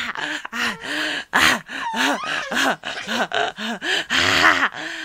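Baby laughing in a run of short, repeated bursts, about two or three a second, with gasping breaths between them.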